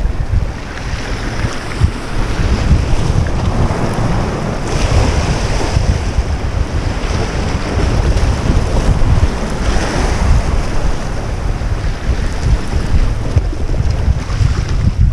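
Wind buffeting the microphone over waves washing and splashing against the boulders of a rock jetty. The surf swells a couple of times.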